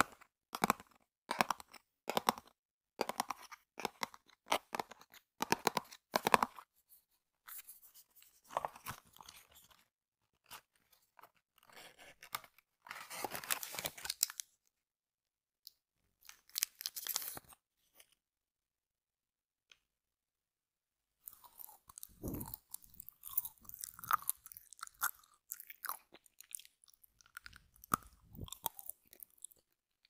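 Close-miked fingertips tapping on a cardboard chocolate box, about three quick taps a second, then crinkling of plastic candy wrappers in short spells, with a couple of dull thumps near the end.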